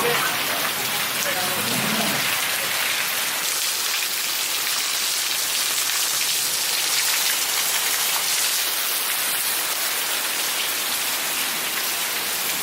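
Heavy rain pouring steadily and splashing on hard surfaces, a dense even hiss.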